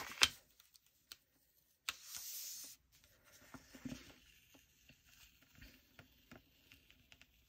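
Paper being handled on a desk: a sharp tap just after the start, a brief rub of a hand across a planner page about two seconds in, then faint rustles and small ticks as stickers are pressed and smoothed down.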